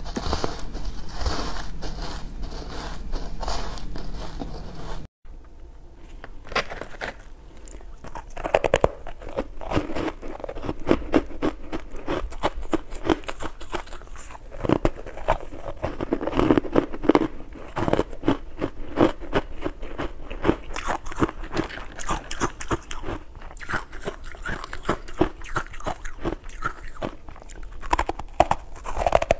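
Close-miked crunching and chewing of ice blocks coated in matcha powder: a dense run of crisp, crackly bites and chews. There is a brief silent break about five seconds in.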